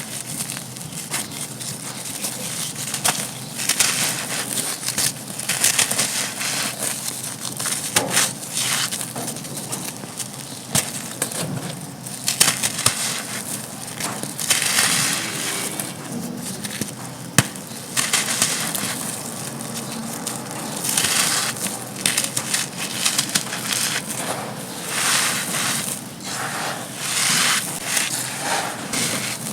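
Dry, gritty black sand-cement chunks crunching and crumbling apart: uneven runs of crisp crackling with many sharp little cracks.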